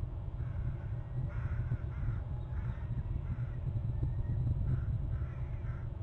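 A bird giving a run of about eight short, harsh, cawing calls in two groups, one call about every half second, over a steady low rumble.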